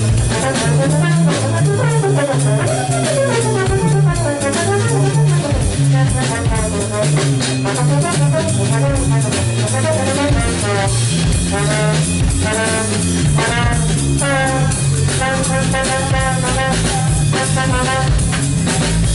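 Live jazz trio: a trombone playing melodic lines over a keyboard and a drum kit, turning to quicker runs of short notes in the second half.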